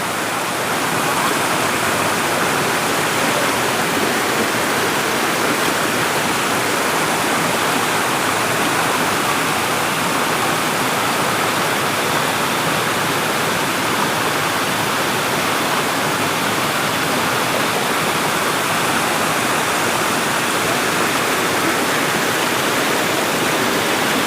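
River water rushing over a waterfall: a steady, unbroken roar of falling water.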